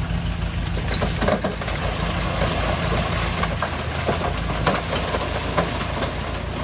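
Heavy diesel engine idling in a steady, evenly pulsing low rumble, with a few short sharp knocks over it.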